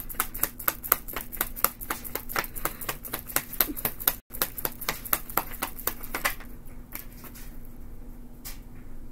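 A tarot deck being shuffled in the hands: a rapid run of soft card clicks and flicks, several a second, thinning out after about six seconds.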